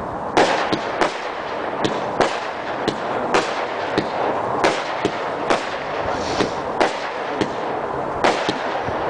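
Aerial fireworks firing in quick succession: sharp reports roughly every half second to a second over a continuous crackling hiss.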